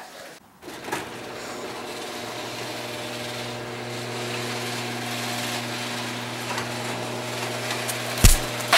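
Electric garage door opener running steadily while a sectional garage door rolls up its tracks, a constant motor hum with rumbling and rubbing from the panels. A single loud thump near the end.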